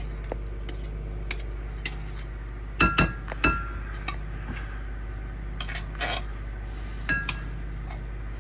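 Spoon clinking and knocking against a dish while condensed soup is scraped out: a few sharp knocks with a brief metallic ring, the loudest cluster about three seconds in, over a steady low hum.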